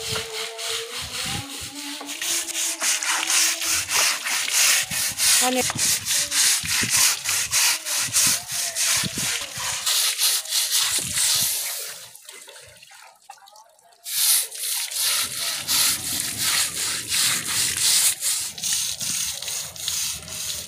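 Stiff-bristled hand scrub brush scrubbed back and forth over the wet woven webbing of a charpai, in fast rasping strokes several to the second. The scrubbing stops for about two seconds past the middle, then resumes.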